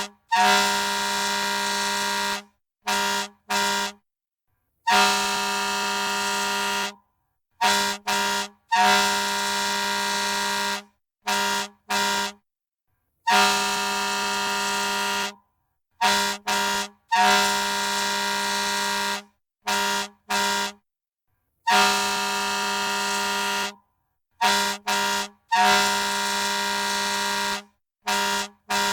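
Fire truck air horn sounding one steady, unchanging pitch in a repeating pattern: a long blast of about two seconds followed by two short blasts, over and over. Each blast starts loudest and cuts off sharply.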